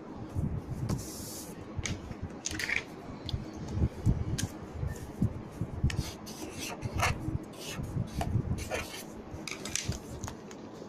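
Slime being squished and pressed by hand: irregular wet squelches with scattered sharp clicks and crackles.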